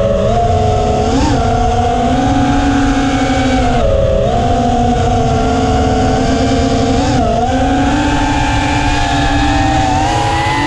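Motors and 5-inch three-blade props of a freestyle FPV quadcopter (EMAX 2306 2400Kv motors), recorded on board over a steady rush of wind. They hold a steady whine whose pitch steps up and down with throttle, with short rising blips about a second in and near 7 s.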